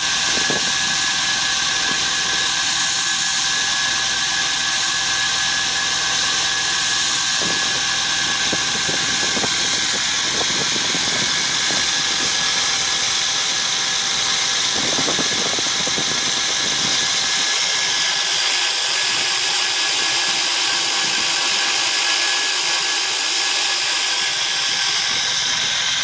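Fibre-optic cable blowing machine running as it blows cable into a duct: a steady loud hiss of compressed air with a constant high whine from its drive.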